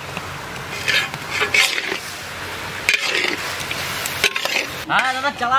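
A spatula stirring and scraping shredded cabbage and potatoes frying in a large metal wok, over a steady sizzle, with uneven scrapes against the pan.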